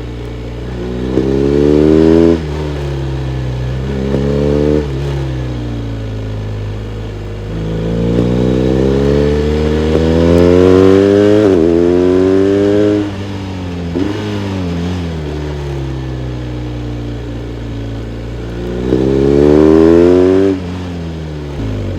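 BMW R1250RS boxer twin accelerating hard in bursts: the engine note climbs steeply and then drops off sharply, four times, with steadier lower running in between. The longest climb breaks briefly partway through and carries on rising, as with a quick gear change.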